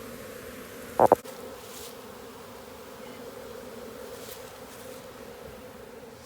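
A honeybee swarm buzzing steadily, a dense hum of many bees, while the swarm moves into a hive box. One brief loud burst about a second in stands out over the hum.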